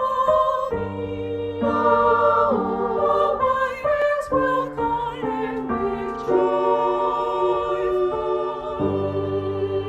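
Women's choir, the voices recorded separately and mixed as a virtual choir, singing a slow, sustained melody with piano accompaniment.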